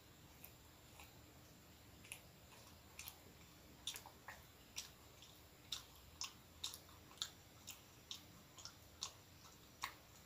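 Quiet chewing of a soft bread roll: irregular wet mouth smacks and clicks, about one or two a second, growing busier after about two seconds in.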